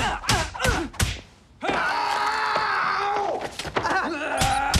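A scuffle on the floor: four quick thumps and slaps in the first second, then a long strained cry held for about a second and a half, followed by more thumps and short grunts near the end.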